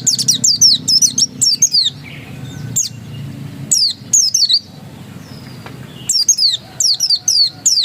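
Pleci dakun white-eye singing its insistent 'ngotot' song: rapid runs of high, sharply falling notes in three bursts, with short pauses between them.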